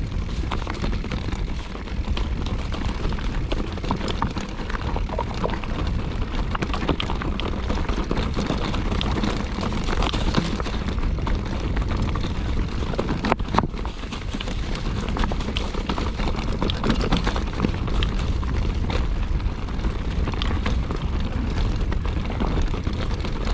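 Wind buffeting the microphone over the clatter of a mountain bike rolling down a rough trail, with tyres and frame rattling and many small knocks. One sharper knock comes about halfway through.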